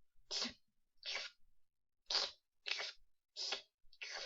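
A series of six short, noisy swishing sounds, each cut off into silence, repeated about every two-thirds of a second to a second.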